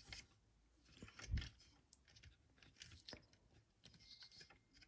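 Faint scattered clicks and a soft knock of hard plastic parts being handled: the articulated wings of a toy-figure upgrade kit being moved and posed.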